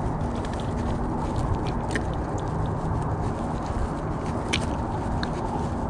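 A few light clicks as a lure's hook is worked out of a flounder's mouth by hand, over a steady low background rumble.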